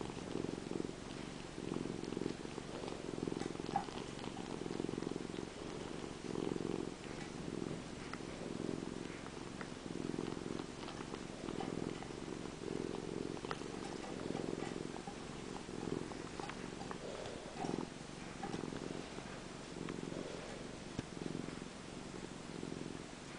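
Domestic cat purring steadily, the purr swelling and fading with each breath about once a second, with faint scattered clicks as it sucks on the tip of its own tail.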